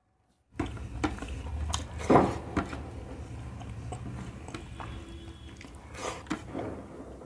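Fingers scraping and gathering rice across a plate, with sharp clicks and scrapes, then a mouthful of rice being chewed. The sound starts suddenly about half a second in, over a steady low hum.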